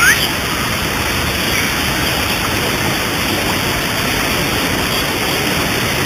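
Waterfall cascading down a rock face into a pool: a steady rush of falling water.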